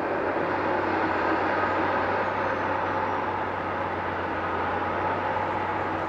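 Bauer BG 36H rotary piling rig working: a steady mechanical drone with a constant low hum beneath it.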